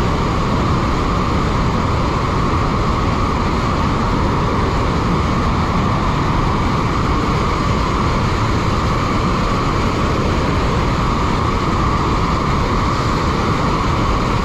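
Bridal Veil Falls at Niagara pouring close by: a loud, steady rush of falling water that never lets up.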